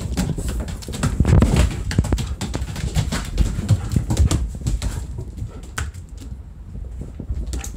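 Rapid clicking and thumping of paws and claws on a wooden floor as a German Shepherd and a kitten run about, over the rumble of a handheld camera being moved.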